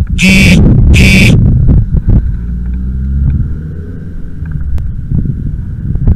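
Two short electronic beeps, each under half a second, in the first second and a half. Then a steady low rumble of wind and road noise from the moving bicycle, with scattered small rattles and clicks.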